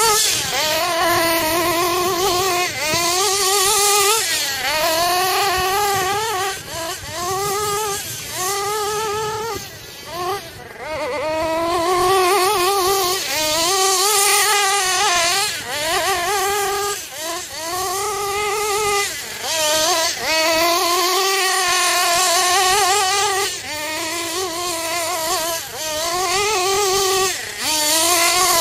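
GS Racing Storm Evo nitro RC buggy's 3.5 cc (.21) glow engine running hard, its pitch rising and falling over and over as the throttle is opened and closed, with a short lull about ten seconds in.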